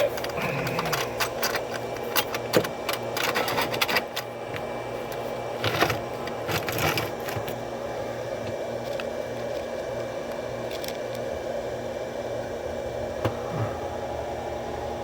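Small metal clicks and rattles of lock pins and a tool being handled in a padlock's pin-tumbler cylinder during rekeying, busy for the first several seconds and then only an occasional tick, over a steady background hum.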